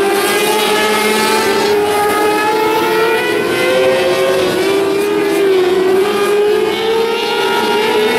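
Several 600cc micro sprint cars racing together, their high-revving motorcycle engines running hard. The pitch of each wavers up and down as the throttles are worked.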